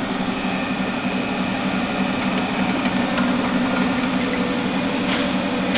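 Rong Fu RF-35 radial mill drill running: its 1.5 hp electric motor and belt-driven step-pulley spindle give a steady hum, with a couple of light clicks about three and five seconds in.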